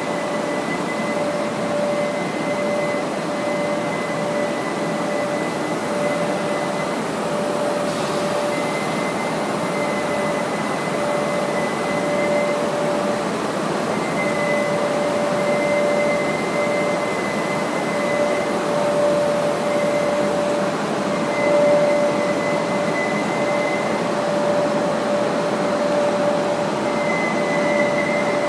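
PVC tablecloth printing machine running on a trial run, its rollers and drive motors making a steady mechanical hum with a constant mid-pitched whine and a fainter higher whine that comes and goes.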